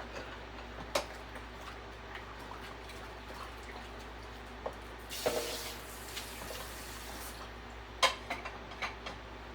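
Kitchen tap running briefly in the middle, for about two seconds, amid scattered sharp clicks and knocks of kitchen things; the loudest knock comes near the end, followed by a few smaller ones.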